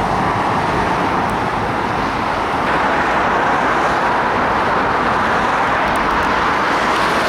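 A loud, steady rushing noise, strongest in the middle range, that starts suddenly and holds even, with no voices or music in it.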